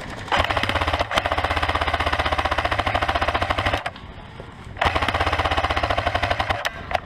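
Airsoft electric gun firing two long full-auto bursts, the first about three and a half seconds long and the second about two, each a fast, even rattle of shots over the steady whine of the gearbox motor.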